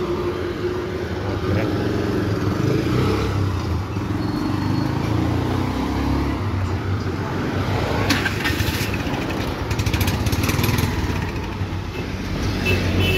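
Street traffic dominated by the small engines of motor tricycle taxis (auto-rickshaws) running and passing close by, with one engine's rapid pulsing louder around eight to eleven seconds in.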